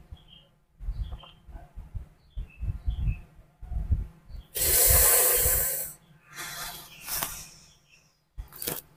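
A man's loud breathing: one long, hissing breath out about halfway through, then a weaker breath and a short sharp one near the end. Soft bumping and rustling comes from a baby monkey moving about on his chest.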